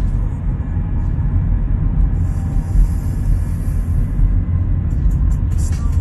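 Steady low road and engine rumble inside a car's cabin on the move, with a short stretch of hiss about two seconds in.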